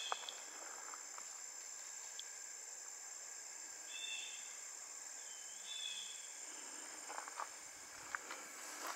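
Steady high-pitched drone of insects in summer foliage, with a few short high chirps around the middle and light footsteps near the end.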